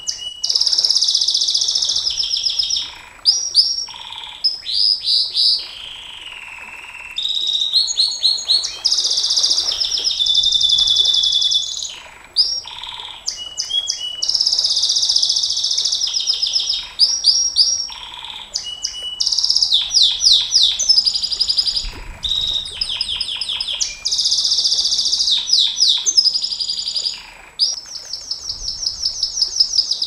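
Domestic canary singing a long, high-pitched song of fast rolling trills and rapidly repeated notes, going on in long runs with only brief pauses between phrases.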